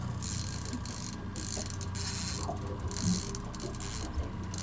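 Conventional saltwater fishing reel being cranked, its gears and clicker ratcheting in quick irregular runs over a steady low hum.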